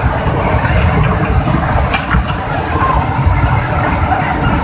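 Flash-flood torrent of muddy river water carrying logs and debris: a loud, steady rushing with a deep rumble underneath.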